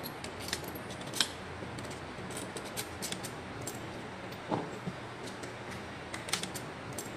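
Scattered small metallic clicks and clinks of alternator parts and fasteners being handled during reassembly, the sharpest about a second in, with a duller knock around four and a half seconds in.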